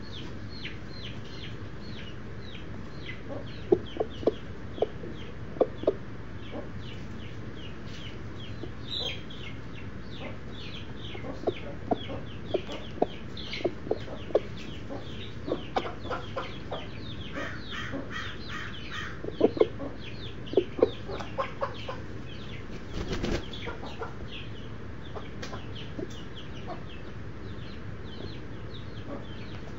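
Baby chicks peeping in a constant stream of short, high chirps, with chickens breaking in on it three times with bursts of low, short clucks. A dull thump comes about two-thirds of the way through.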